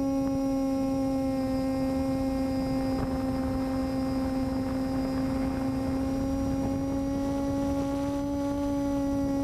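Electric motor and propeller of an FPV model airplane running at steady cruise throttle: a steady hum with overtones that dips slightly in pitch near the end as the throttle eases.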